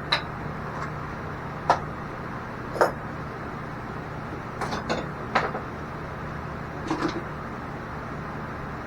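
Metal parts being handled and set down while taking apart a forge burner: several separate short knocks and clinks, a few close together near the middle, over a steady low hum.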